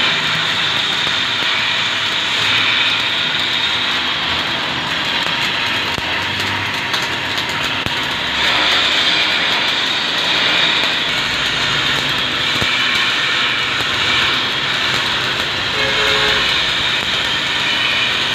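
Electric arc welding on a metal frame: a steady hiss with fine crackle that runs on without a break.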